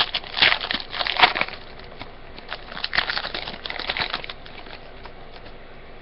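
Trading card pack wrapper being torn open and crinkled, in two bursts of crackly rustling.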